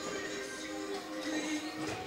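Music playing, with sustained held notes.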